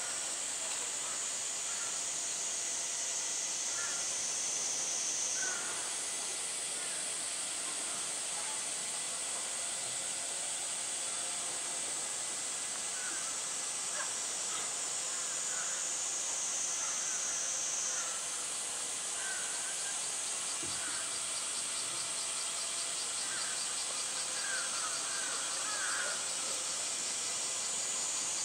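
Summer cicada chorus: a steady high-pitched buzz that jumps to a higher pitch about six seconds in and again about eighteen seconds in.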